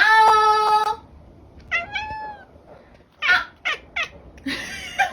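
A cat meowing several times: one long, level meow for about the first second, a shorter meow that rises and falls about two seconds in, then a few short meows near the end.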